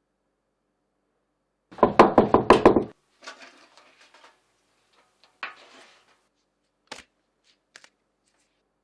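Knuckles rapping quickly about six times on a giant frozen potato fry in a freezer tray, a hard knock that shows it is frozen solid. Softer scraping and rustling follow as it is handled, with a couple of light clicks near the end.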